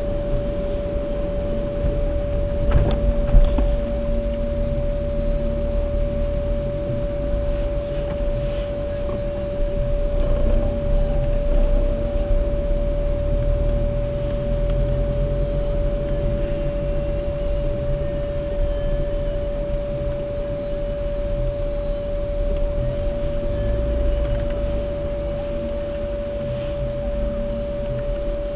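Car driving noise heard from inside the cabin: a low engine and road rumble that swells and fades, under a steady high-pitched tone. A short knock comes about three seconds in.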